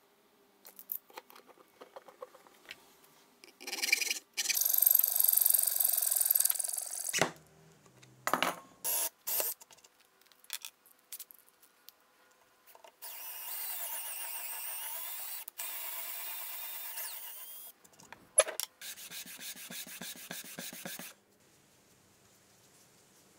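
A run of bench-work sounds from small woodworking hand tools. Light clicks and knocks of wooden parts and a steel ruler are handled. A loud, noisy stretch of a few seconds is followed by a steadier whirring stretch of about five seconds. Near the end comes a couple of seconds of quick back-and-forth sandpaper strokes on a small wooden piece.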